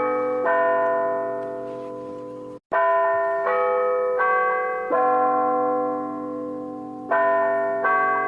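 A slow melody of struck bell-like chimes as background music, each note ringing out and fading until the next is struck. The sound cuts out for a moment about two and a half seconds in.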